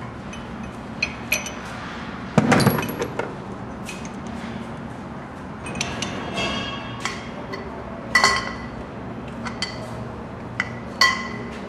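Steel bolts and tools clinking and knocking against the steel bowl and hub of a decanter centrifuge during teardown: about ten separate metallic clinks, several ringing briefly, with a heavier knock about two and a half seconds in.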